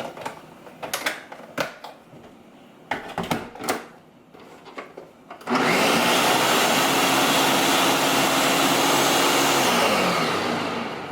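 A few knocks and clicks, then a countertop blender switches on about halfway through and runs loud and steady, blending chipotle cream sauce, before it is switched off and winds down with a falling hum near the end.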